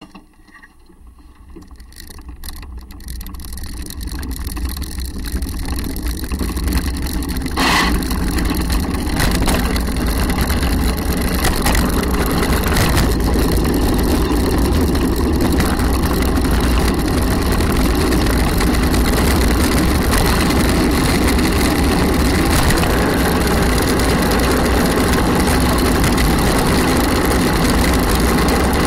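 Wheels of an unpowered gravity-racing cart rumbling on asphalt, with wind rushing over the cart-mounted microphone. The noise swells over the first eight seconds or so as the cart gathers speed downhill, then holds steady at speed.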